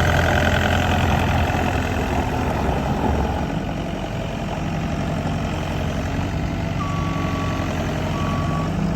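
Komatsu SK1020-5 skid steer loader's engine running, dropping from higher revs to a steady idle a few seconds in. Two short beeps sound near the end.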